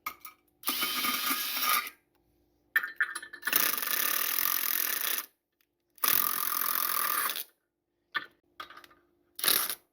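Hand ratchet wrench cranked in three spells of rapid clicking, turning a nut onto threads that have been marred, with a few single clicks near the end.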